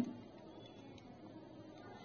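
Faint room tone: a low steady hiss, with a barely audible tick about a second in.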